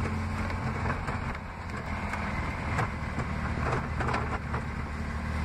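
Motor vehicle engine humming steadily as it drives along a dirt track, with a few short knocks and rattles near the middle.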